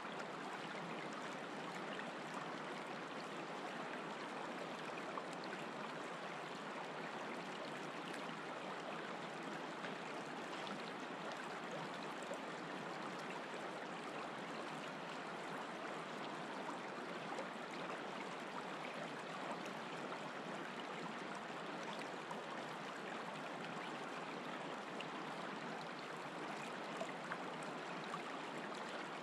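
Shallow river flowing over a stony bed: a steady, even rush of water.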